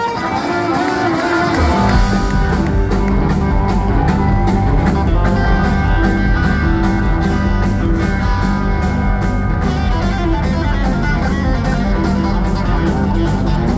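Live rock band playing electric guitars, bass, drum kit and keyboards through a concert PA. A held guitar chord rings at the start, and the full band with a steady drum beat comes in about two seconds in.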